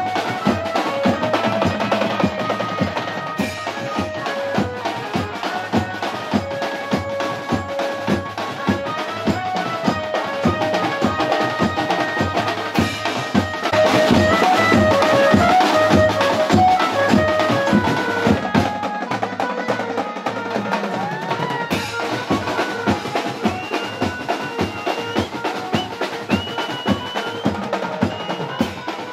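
Dance music with fast, steady drumming under a repeating melody line, louder for a few seconds in the middle.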